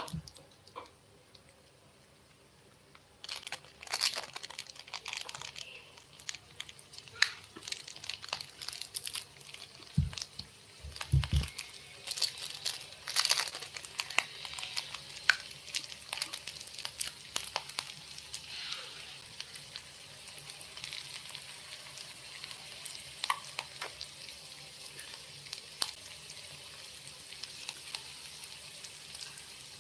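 Sliced onions frying in oil in the pot of a mini electric cooker: quiet for about three seconds, then crackling and spitting as the oil comes up to heat, settling into a steadier sizzle in the second half. Two dull knocks come about ten and eleven seconds in.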